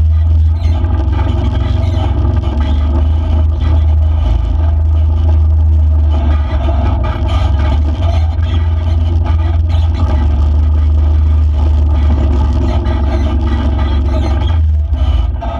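Off-road vehicle running steadily over a rough dirt forest road, with a heavy low rumble throughout. The sound eases near the end as the vehicle slows.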